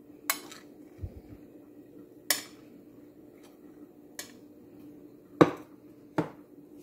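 Metal spoon clinking against a plate while scooping chicken stuffing onto dough: five sharp clinks a second or two apart, the loudest about five and a half seconds in, with a dull thump about a second in.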